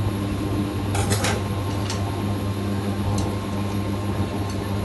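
Kitchenware being handled: a few short clinks and knocks, scattered over a few seconds, over a steady low hum.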